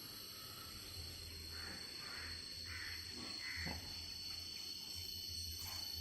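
Steady high insect drone, with four short harsh animal calls in quick succession in the middle.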